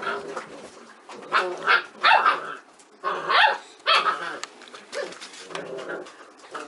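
Magyar Vizsla dogs barking during play, with a run of loud, short barks between about one and four seconds in and softer ones before and after.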